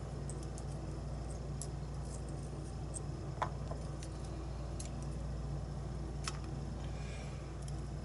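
Scattered light metallic clicks, about eight over the span, as a thin steel tool works in the pin chambers of a brass lock cylinder during disassembly, over a steady low hum.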